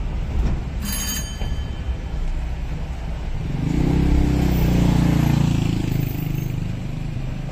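Street traffic: a steady low rumble with a motor vehicle's engine passing close and loudest about halfway through. A brief high tone sounds about a second in.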